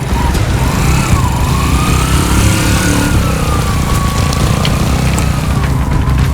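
Motorcycle engine of a three-wheeled tricycle running steadily under load on an uphill climb, with a thin whine that slowly rises and falls in pitch.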